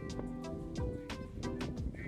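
Background music with a steady beat: sharp percussive strokes over held chords.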